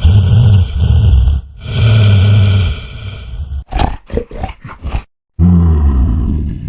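Loud snoring, one long snore about every second and a half, broken near the middle by a run of five or six quick short snorts and a brief drop-out to silence before the snoring resumes.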